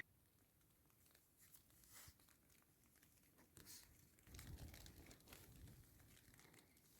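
Near silence, with faint rustling, like fabric being shifted, about four to six seconds in.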